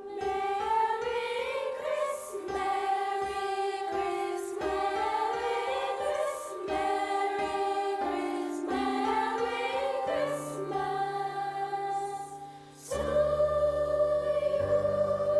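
Choir singing with accompaniment; about thirteen seconds in, the singing gives way to steady held keyboard chords.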